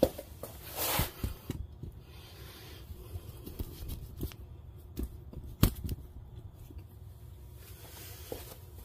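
Scattered handling noises in a workshop: a few light knocks and clicks and some rubbing, as gloved hands and parts are moved about, with the sharpest click about five and a half seconds in.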